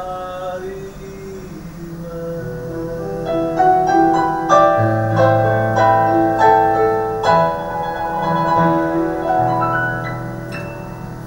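A man's last sung note ends in the first second or so, then a digital piano plays on alone: a solo closing passage of flowing broken chords that grows louder in the middle and thins out to a final high note near the end.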